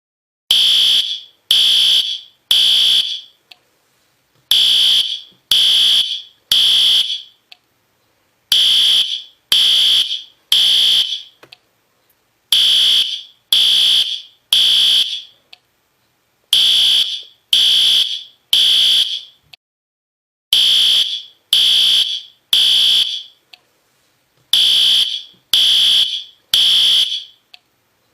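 System Sensor P2R fire alarm horn strobe sounding in the temporal-three evacuation pattern: three high-pitched horn blasts, then a pause, repeating about every four seconds.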